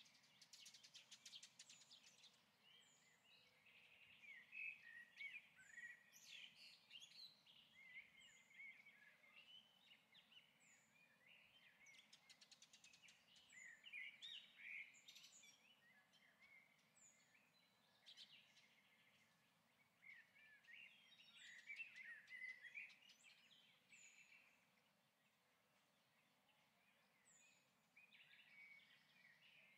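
Faint birdsong: chirps and warbling phrases from several birds, with one short, high call repeating every second or two.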